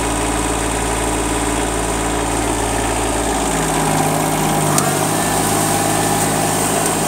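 Kubota compact tractor's diesel engine running steadily, its low note shifting about three seconds in.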